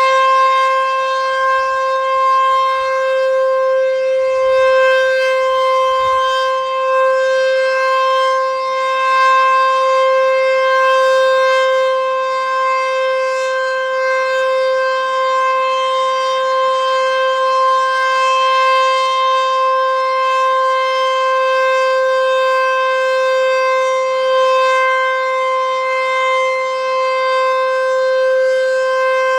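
Sentry 14V-B outdoor warning siren sounding its full alert cycle: one loud tone held at a constant pitch, without rising or falling.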